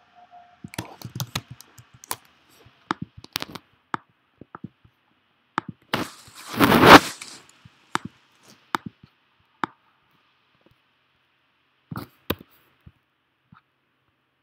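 Scattered clicks and taps of a computer keyboard and mouse or trackpad, irregular and sometimes in quick runs. About six seconds in, a loud rush of noise lasts about a second and a half, the loudest sound.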